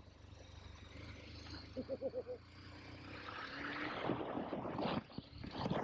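KTM 1290 Super Adventure S's V-twin engine running steadily low at first, then getting louder from about three seconds in as the bike pulls. The level drops briefly near five seconds in and then picks up again. About two seconds in there is a quick run of five or six short high notes.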